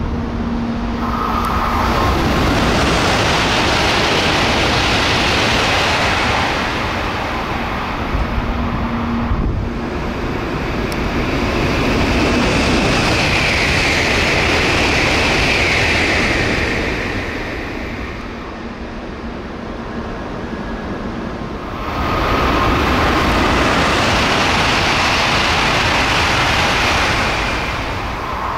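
Three N700-series eight-car Shinkansen trains pass one after another at about 240–255 km/h without stopping. Each pass is a loud rush of wind and wheel noise lasting about five seconds that swells and then fades.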